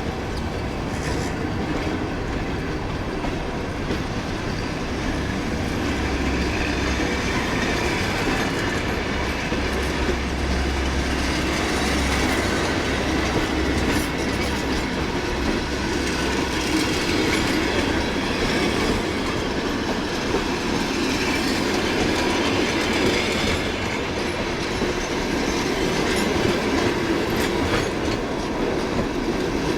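Passenger train pulling out behind a KZ4AC electric locomotive: the wheels clatter over the rail joints with some wheel squeal, under a steady rumble, and a low hum from about six to seventeen seconds in.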